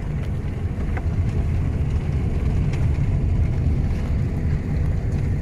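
Steady low engine and road rumble inside the cabin of a soft-top 4x4 driving over a rough dirt track.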